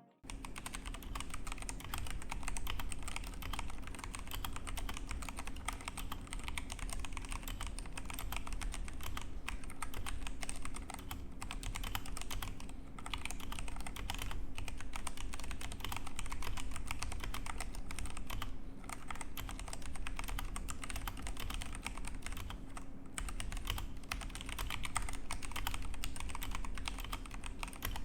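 Continuous fast typing on a 65% mechanical keyboard fitted with brown tactile switches: a dense, unbroken run of key clacks. A steady low hum runs underneath.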